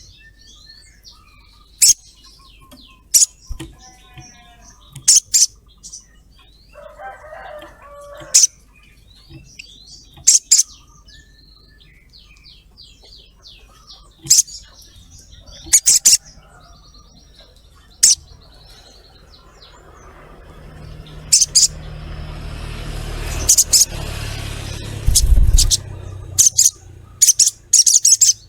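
Olive-backed sunbird giving sharp, high 'cret cret' calls in short loud bursts every second or few, with softer twittering between. A low rumbling noise swells in the second half and fades again near the end.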